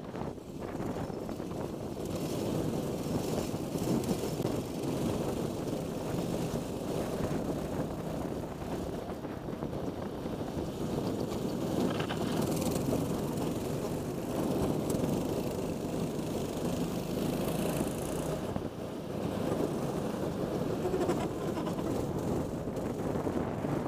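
Racing kart's engine running at speed under way, heard from a camera mounted on the kart, with wind noise on the microphone.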